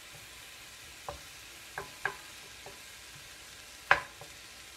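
Wooden spatula stirring and breaking up ground beef in a cast iron skillet, knocking sharply against the pan about five times, loudest near the end, over a faint steady hiss.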